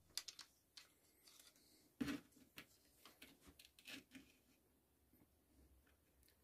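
Faint handling clicks and a soft knock as a spindle gouge is slid and set in a small plywood sharpening jig, then near silence for the last couple of seconds.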